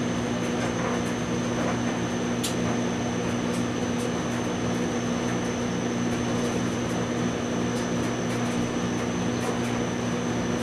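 A steady mechanical hum with a constant high whine over it, and a few faint ticks.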